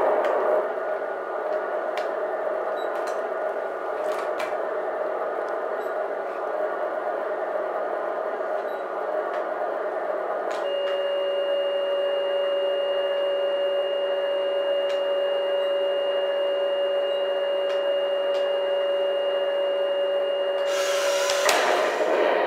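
Simulated tank engine running at idle, played through the speaker of a Heng Long M41 model tank's TK 6.0 sound board. About ten seconds in the sound changes to a steadier hum with clear held tones, and a brief louder noisy burst comes near the end.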